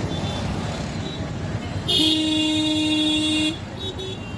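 A vehicle horn sounds once, a steady note held for about a second and a half starting about two seconds in, over the running noise of street traffic.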